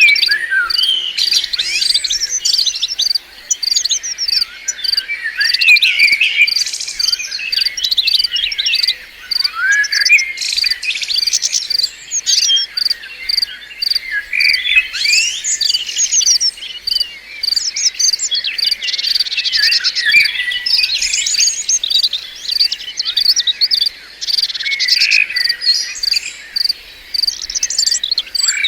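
White-eyes (pleci) chirping and twittering continuously in fast, high, overlapping calls. Under them runs a steady high pulse about three times a second.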